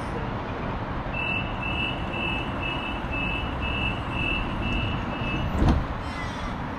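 Door-closing warning beeps on a Sydney Trains suburban train: about nine short, high, even beeps at about two a second, over the steady hum of the stopped train. Near the end comes a single thud as the doors shut.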